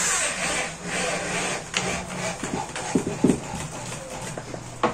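Power drill driving screws through a thin 5 mm plasterboard ceiling panel into the framing above, the motor running in short spells with a grinding noise. A few sharp knocks follow about three seconds in.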